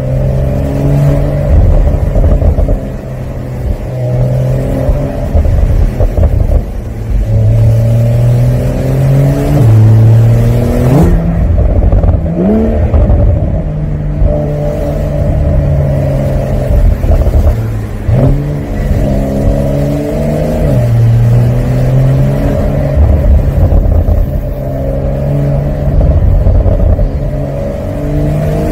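Porsche 911 (992) Carrera 4S twin-turbo flat-six running under way, heard from the open cockpit. The engine note holds steady on the cruise and drops lower at times, with a few quick rises in revs near the middle as the car changes gear.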